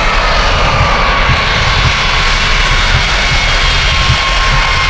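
Vickers VC10's four rear-mounted Rolls-Royce Conway turbofans running loud as the jet makes a fast taxi run down the runway. A high whine falls in pitch over the first two seconds, then holds steady above a low rumble.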